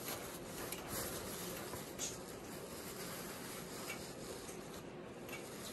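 Disposable absorbent pad rustling as it is unfolded and spread out by hand, with a few sharper crackles along the way.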